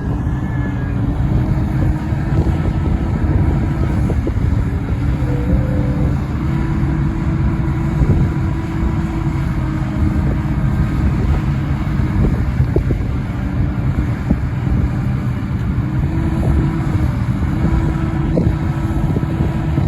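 Liebherr A912 Litronic wheeled excavator's diesel engine running steadily, with a few light clicks.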